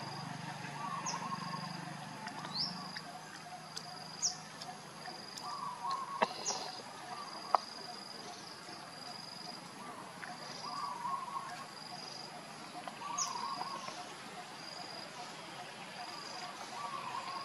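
Outdoor nature ambience with birds chirping: a short high note repeating about once a second, with several quick rising chirps and a few sharp clicks over a soft hiss.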